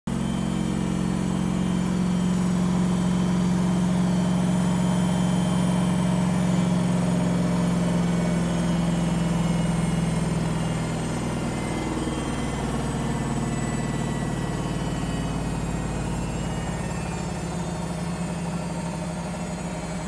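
Samsung eco bubble 7 kg front-loading washing machine on a high-speed spin, running loud with a steady low hum. About halfway through the level drops and the hum breaks up as the drum begins to slow down at the end of the spin.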